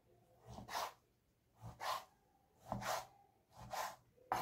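Large kitchen knife slicing raw boneless chicken into thin strips on a wooden cutting board: a short stroke about once a second, four in all, then a sharper knock of the blade on the board near the end.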